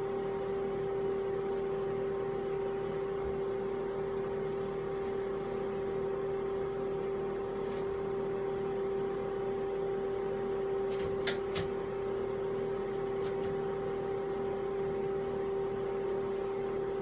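Steady machine hum with one strong pitched tone over a light even noise, like a running fan or appliance. A few light taps come about eleven and thirteen seconds in.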